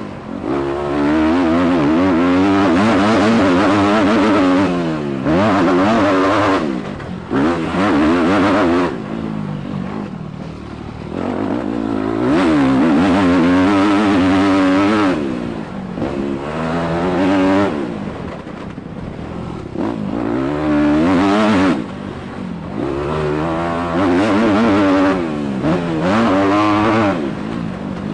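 Dirt bike engine heard up close from a helmet camera during a motocross lap, revving up and dropping in pitch over and over as the rider works the throttle and gears, with short lulls where the throttle is rolled off.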